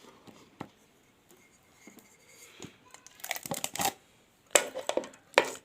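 Plastic scraping and crackling as an LED bulb's plastic cover is worked off by hand, in a few short clusters in the second half.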